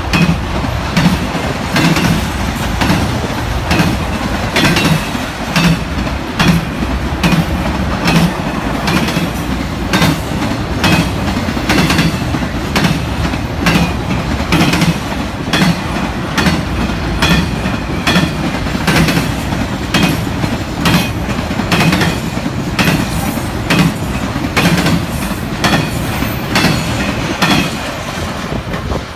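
Freight train cars rolling past at speed: a steady rumble of steel wheels on rail with rhythmic clickety-clack as the wheelsets cross rail joints, about two clacks a second, often in quick pairs.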